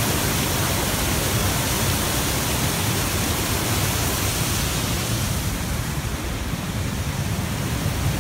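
Waterfall rushing: a steady, loud wash of falling water.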